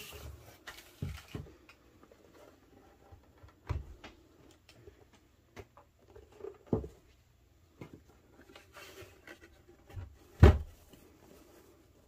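Cardboard box packaging being handled and set down on a wooden table: a scattering of soft knocks and thumps, the loudest about ten and a half seconds in, with faint rustling of packing paper near the start.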